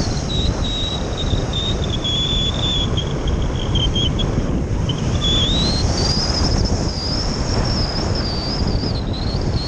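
Wind rushing and buffeting over the microphone of a camera riding on a radio-controlled slope-soaring glider in flight, with a thin high whistle running over it that wanders in pitch, dipping briefly about halfway and then rising higher for a few seconds.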